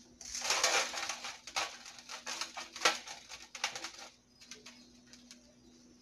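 Ground peanuts being sprinkled by hand onto a greased metal baking pan: a rustling patter of crumbs falling on the metal, with a run of short sharp ticks as the hand scoops from the bowl, dying down after about four seconds.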